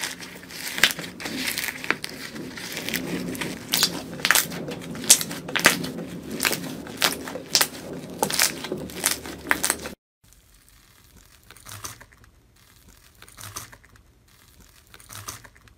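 Hands squeezing and kneading a crumbly, snow-like blue slime, giving dense crackling and crunching. About ten seconds in, a cut gives way to much quieter, scattered sounds as a hand presses into a dark mud-like slime.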